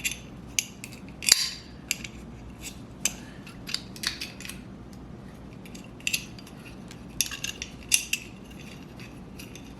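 Scattered sharp metallic clicks and light clinks of small AR-15 lower-receiver parts being worked by hand, as the magazine catch is turned onto its release button until tight. The loudest clicks come about a second in and near the end.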